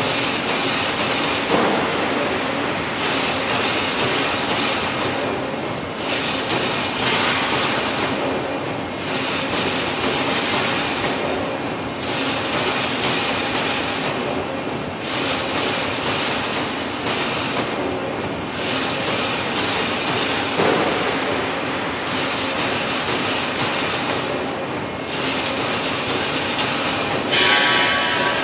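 Wire fence-making machine running in a factory: a loud, dense mechanical clatter that eases off briefly about every three seconds as the machine works through its cycle.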